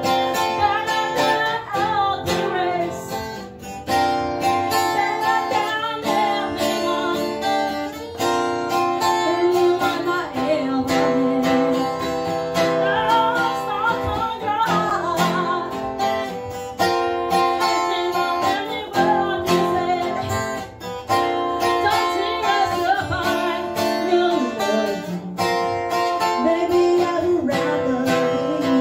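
A woman singing to strummed acoustic guitar.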